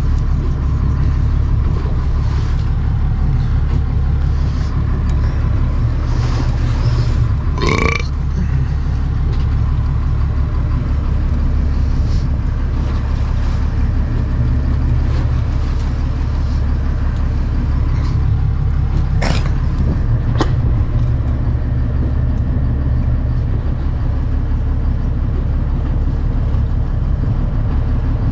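A small fishing boat's engine running steadily, a loud low rumble heard from the open deck, with a few brief sharp knocks or clicks over it.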